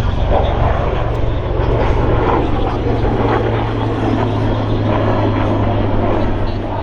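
Military aircraft engines running loud and steady as aircraft fly the demonstration, with a continuous low drone.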